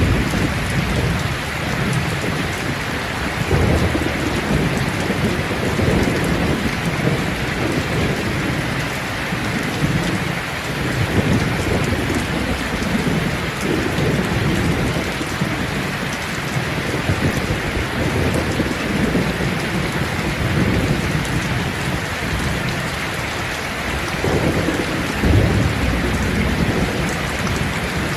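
Steady rain falling on leaves, a continuous hiss of drops, with low rolling thunder rumbling up several times.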